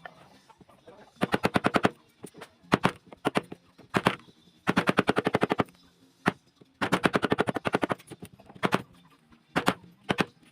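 A power tool working wood in short bursts of rapid knocking, about fourteen strikes a second, each burst under a second long and repeated about ten times with short pauses between.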